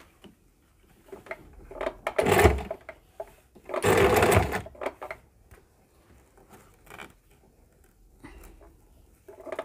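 Compact electric sewing machine stitching in two short bursts, about two seconds in and again about a second later, sewing small pleats into fabric. Faint clicks and fabric handling come between the bursts.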